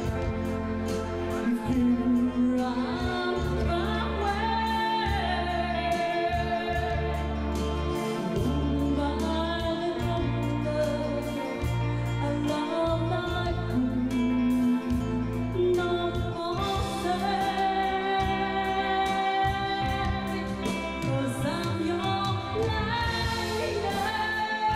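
A female vocalist singing a ballad live with a band, the sung melody holding long notes over a steady bass accompaniment.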